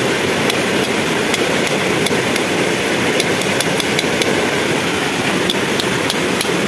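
Steady rush of a small jungle stream running over rocks, with scattered light clicks and taps.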